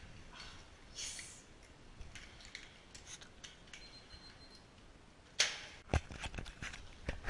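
Faint plastic clicks and rustles, then one sharp puff of air about five and a half seconds in, followed by a few quick clicks: a Nerf foam-dart blaster being handled and fired.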